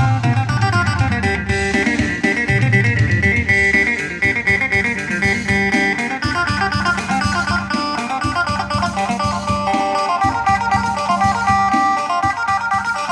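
Electric phin, the Isan plucked lute, played through an effects unit: a quick plucked melody over a steady drone note.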